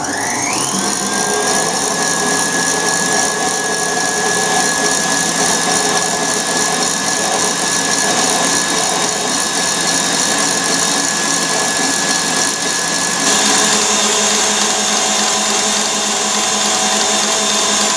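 KitchenAid tilt-head stand mixer running at speed, its motor whine rising as it spins up at the start and holding steady, with a change in tone about 13 seconds in. It is whipping egg whites while hot sugar syrup is poured in a thin stream, the stage that turns them into a boiled meringue cream.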